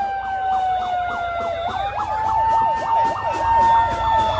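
Emergency vehicle sirens in the street: one yelping rapidly up and down, over a steadier siren tone that slowly falls, dips and climbs back about halfway through.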